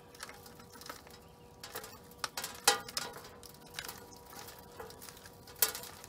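Potting soil being crumbled by hand off a root ball, loose bits pattering down: scattered soft crackles and small taps, the sharpest a little under three seconds in and another near the end.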